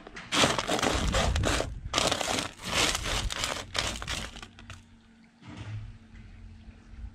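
Washed sapphire gravel being pushed and spread by hand across a metal sorting sheet: small stones rattling and scraping on the metal in two long spells, stopping about four and a half seconds in.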